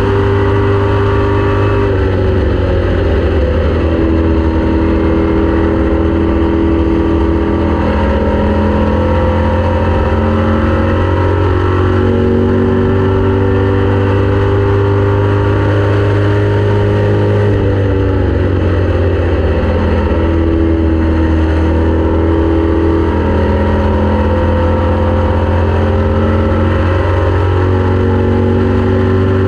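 Race car engine running hard at racing speed, loud and unbroken, its pitch falling and climbing again several times over a heavy steady low rumble.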